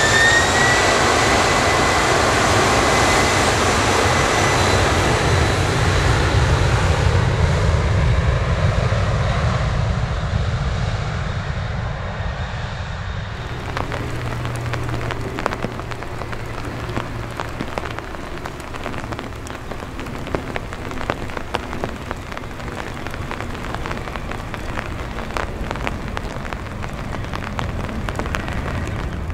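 Boeing 747's four jet engines running at takeoff power on the takeoff roll, with a whine rising in pitch at the start. About halfway through the sound cuts to rain pattering on an umbrella over a fainter low jet rumble.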